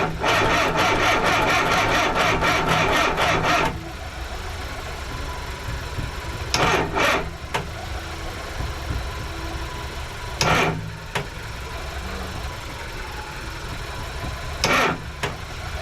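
A Mini's engine cranking on the starter for about three and a half seconds, turning over at about five strokes a second without catching: it will not start. A few short, sudden noises follow later, over a steady engine hum underneath.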